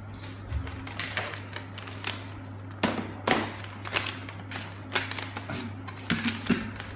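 Paper instruction sheet being unfolded and handled, crackling and crinkling in irregular bursts, with small plastic clicks from the toy parts, over a steady low hum.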